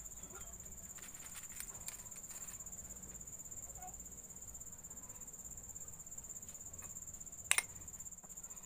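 Crickets trilling steadily in the background, with faint light ticks of a metal spoon in a glass mixing bowl. About seven and a half seconds in, the spoon clinks sharply against the glass twice.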